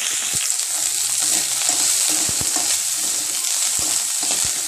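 Shallots, curry leaves and dried red chillies sizzling in hot oil in a kadai, with a steady hiss, while a metal ladle stirs them and scrapes and knocks against the pan a few times.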